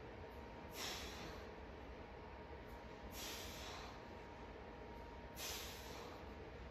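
A man's forceful breaths out during single-leg glute bridges, three short hissing exhalations about two seconds apart, one with each explosive hip lift.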